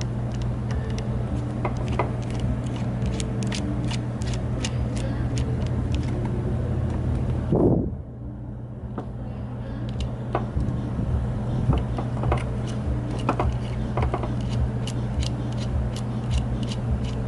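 Light, irregular clicks and ticks of a small screwdriver and fingers working tiny screws in a drone's plastic camera gimbal housing, over a steady low hum. There is a brief louder bump about halfway through.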